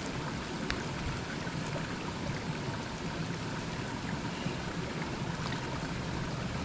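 Steady rush of creek water flowing and falling over small waterfalls.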